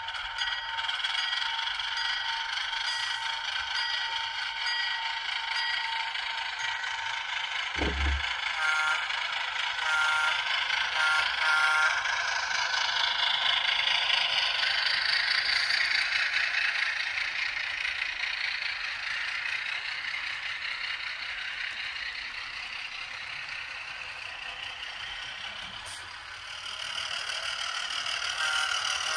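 Onboard sound system of a model Atlas HH600/660 diesel switcher running with its train, playing a steady diesel engine sound. An evenly repeating ringing, like the locomotive's bell, runs through the first several seconds. There is a low thump about eight seconds in, then a few short tones.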